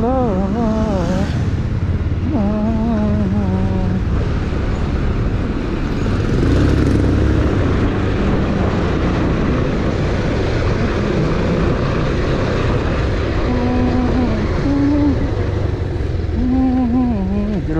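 Bajaj Pulsar 220F single-cylinder motorcycle on the move: engine running under a dense, steady low rumble of wind and road noise. A voice comes in briefly a few times.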